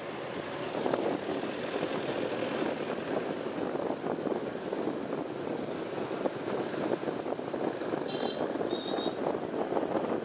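Moving motorbike traffic heard from the back of a scooter: a steady mix of small engines and tyre and road noise. A brief high-pitched tone sounds about eight seconds in.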